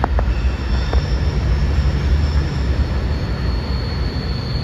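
CSX M410 freight train rolling past close by: a steady heavy rumble of wheels on rail, with a few sharp clicks in the first second and a faint high steady whine over it.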